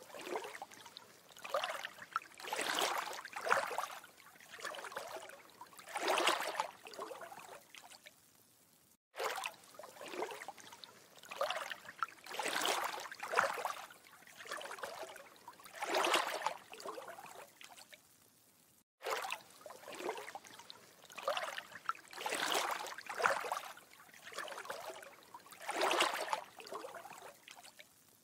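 Water sounds coming in irregular swells every second or two. It is a short ambience recording looped about every ten seconds, with a brief silent break between repeats.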